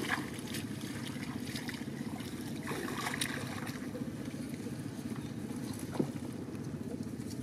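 Steady low motor drone, with water splashing briefly near the start and about three seconds in, and a single sharp knock about six seconds in.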